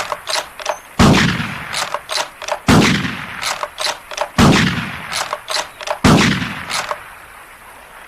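Winchester Model 70 bolt-action rifle firing four shots about 1.7 seconds apart, each a loud crack with a long echoing tail, with quick clicks in between that fit the bolt being worked between shots.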